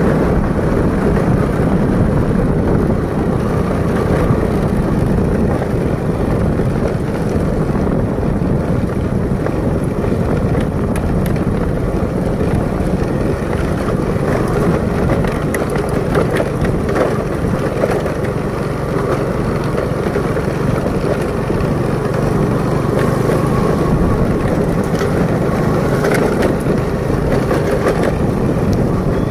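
Motorcycle engine running steadily under way, with continuous low road and wind noise as it rides a rough dirt track.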